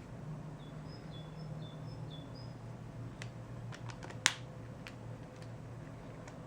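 A few sharp, light clicks, the loudest a little past four seconds in, over a steady low hum, with a faint run of short high chirps in the first couple of seconds.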